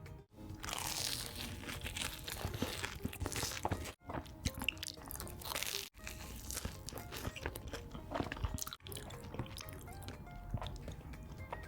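Close-miked eating: crunchy bites and chewing of food, breaking off abruptly a few times, with music underneath.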